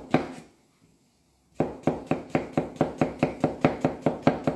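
Chef's knife slicing a cucumber thinly on an end-grain wooden chopping board: a steady run of sharp knocks, about four or five a second, after a pause of about a second near the start.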